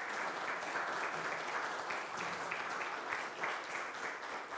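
Audience applauding: dense, steady clapping that starts to ease off near the end.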